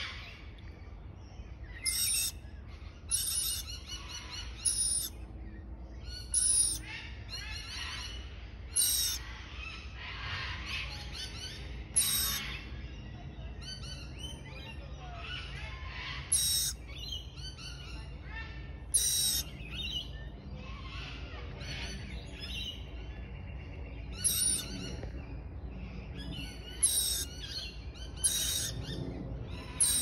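Rainbow lorikeets, a young one among them, chirping: short, shrill calls repeated at irregular gaps of one to a few seconds over a steady, softer chatter.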